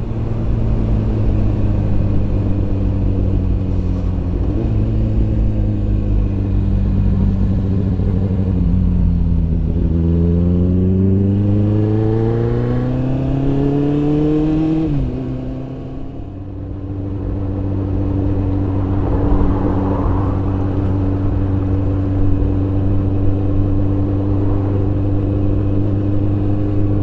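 Kawasaki ZX-9R inline-four motorcycle engine under way, with wind rushing over the helmet microphone. The revs climb steadily through one gear from about nine seconds in, drop suddenly at a gear change about fifteen seconds in, then hold at a steady pitch.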